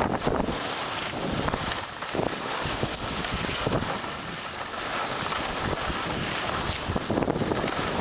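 Wind buffeting the camera microphone, a rushing noise that rises and falls in gusts.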